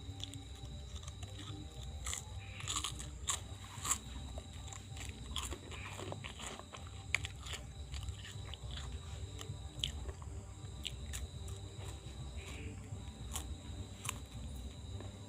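Hands rubbing and pressing on skin during a traditional urat massage, close up, with irregular clicks and crackles over a steady low hum.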